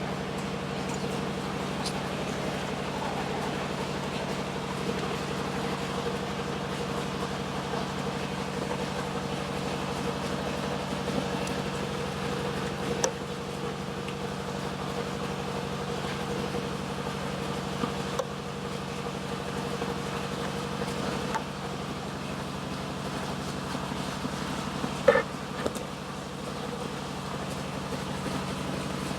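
A steady low mechanical hum with a few faint clicks scattered through it and one louder knock near the end.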